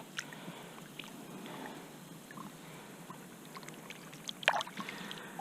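Quiet water noise around a kayak, with scattered light clicks and knocks and a few sharper ticks about four and a half seconds in.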